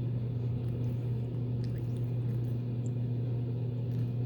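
A steady low hum with a few faint soft clicks.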